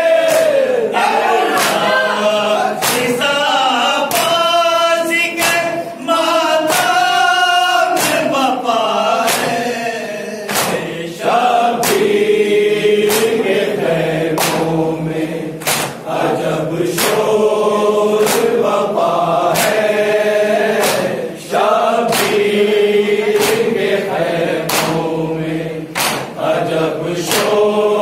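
Men's voices chanting a noha together, a Shia mourning lament, over a steady beat of hands slapping chests in matam, a little faster than one slap a second.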